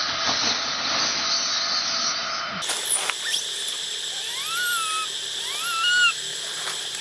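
Baby long-tailed macaque giving two high cries, each rising and then holding level, about four and five and a half seconds in, over steady insect noise. The cries are an infant begging for its mother's milk.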